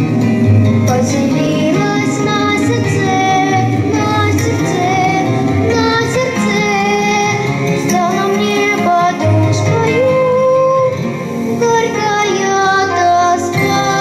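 A song: a high singing voice carrying a melody over instrumental accompaniment with a steady bass line.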